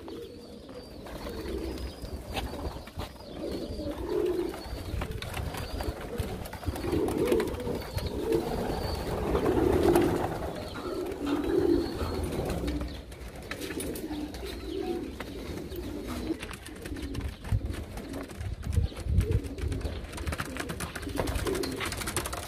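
Domestic pigeons in a loft cooing, many low coos overlapping one another, thickest in the middle.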